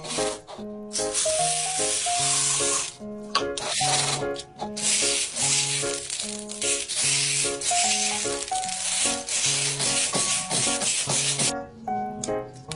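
Slime being worked by hand, a loud, rough, scratchy rubbing noise that runs for most of the stretch with a short break about three seconds in, over background pop music with a steady beat.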